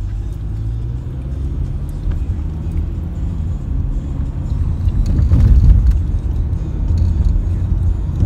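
Car cabin noise while driving: a steady low rumble of engine and tyres, heavier about five seconds in.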